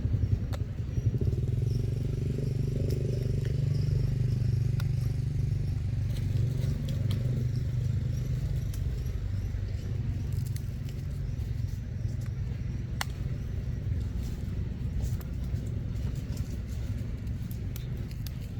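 A steady low rumble with scattered faint clicks and ticks.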